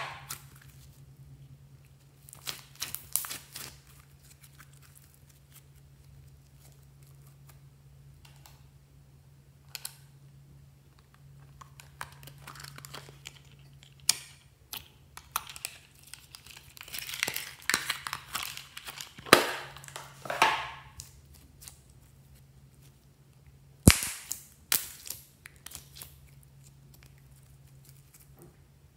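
Glittery slime squeezed and poked by hand, giving scattered sharp wet pops and clicks as air pockets burst, with a denser run of crackling a little past the middle and one sharp snap near the end. A faint steady low hum lies underneath.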